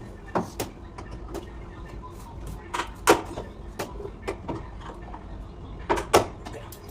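Irregular sharp clicks and knocks of parts and tools being handled during work on a front-load washing machine, over a low steady hum. The loudest knocks come about three seconds in and again about six seconds in.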